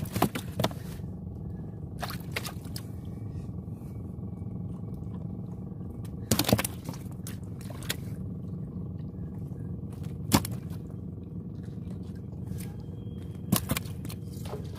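A boat's engine running steadily at idle, with scattered knocks and scrapes from a net fish trap being handled in the boat; the sharpest knocks come about six and a half and ten seconds in.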